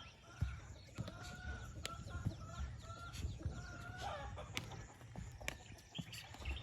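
A long, drawn-out animal call lasting about three seconds, held at a steady pitch, over scattered sharp clicks and knocks.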